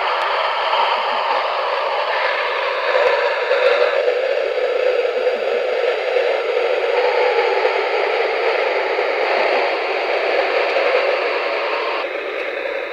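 Many talking meerkat toys repeating one another all at once through their small speakers, making a loud, steady, garbled hiss with no clear words.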